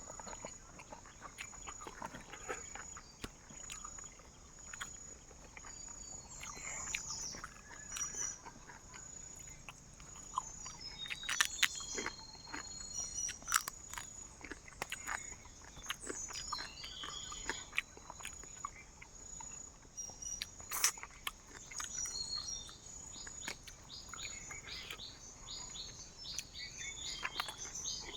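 Jungle insects chirping in a steady, high, pulsing rhythm, with birds chirping now and then. A few sharp clicks and knocks, the loudest about halfway through, stand out over it.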